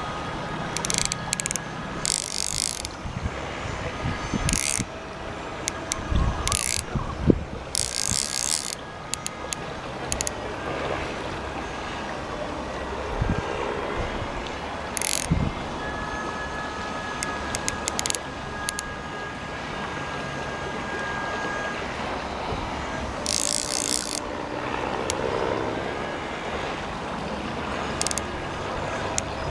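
Fly reel ratchet clicking in short bursts, the longest about a second, as line moves on the spool with a hooked chub on the line. Steady rushing of shallow river water runs underneath.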